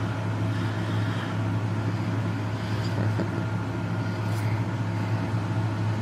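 Box fan running with a steady low electric hum. A couple of faint ticks, about three and four and a half seconds in, from a husky puppy chewing a rubber Kong toy.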